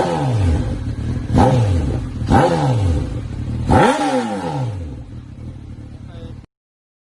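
Honda 1000 cc inline-four motorcycle fitted with an SC Project S1 slip-on exhaust, revved in four quick throttle blips, each falling back toward idle, the last the highest. It then settles to idle before the sound cuts off suddenly about a second before the end.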